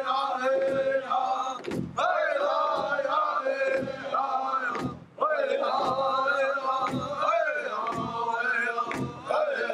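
Native American drum group singing together in high voices around a large shared drum, beating it with sticks. Each sung phrase starts high and steps down lower, with short breaks between phrases.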